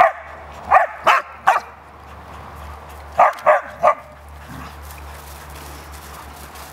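A dog barking in play: four short, sharp barks in the first second and a half, then three more about three seconds in.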